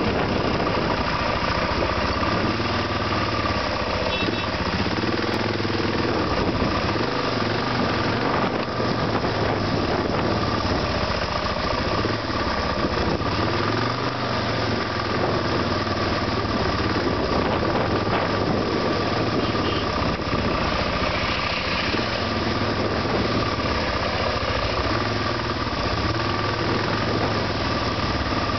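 Suzuki DR650's single-cylinder four-stroke engine idling and running at low speed in stop-and-go traffic, over a steady high whine, with the engines of surrounding cars mixed in.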